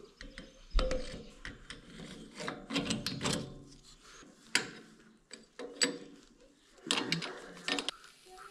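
Rocker arm assembly of an International Harvester C123 engine being fitted onto the cylinder head: scattered metal clinks and knocks of the parts, with the loudest knock about a second in. Near the end a wrench goes onto the rocker shaft bolts.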